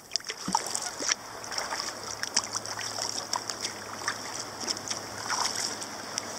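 Kayak paddle strokes: water splashing and dripping off the paddle blades as a sea kayak is paddled along flat water. A steady low hum runs underneath from about a second and a half in.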